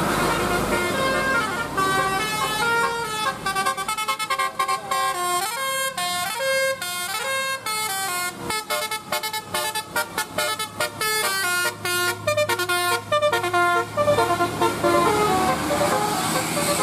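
Basuri 'telolet' multi-tone air horn on a bus playing a fast tune of stepped notes, the notes chopping very rapidly through the middle, over the noise of the vehicle. The tune stops about two seconds before the end, leaving only the vehicle noise.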